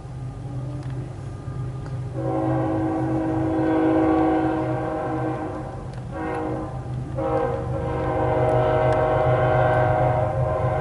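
A BNSF ES44C4 locomotive's five-chime Nathan K5HL air horn sounding two long blasts. The first starts about two seconds in and lasts about four seconds; after a short break the second starts about seven seconds in and is still sounding at the end. A steady low rumble from the train runs underneath.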